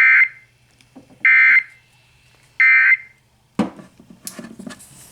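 Three short, loud Emergency Alert System end-of-message data bursts, each a harsh quarter-second squawk, about 1.3 s apart, marking the end of the flash flood warning. After them come irregular knocks and rattling.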